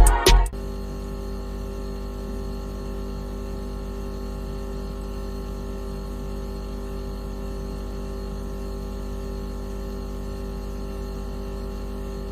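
Steady synthetic electronic tone, sold as an anti-mosquito repellent sound: an unchanging hum with several fixed pitches held together. The tail of a drum-beat music intro cuts off about half a second in.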